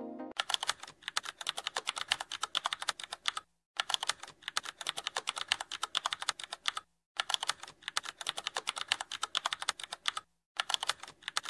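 Computer keyboard typing sound effect: rapid key clicks, broken by brief silences three times, about every three and a half seconds.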